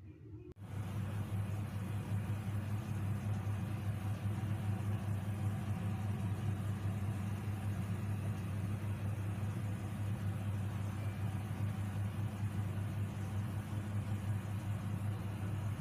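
A steady low motor hum, even and unchanging, that starts abruptly about half a second in.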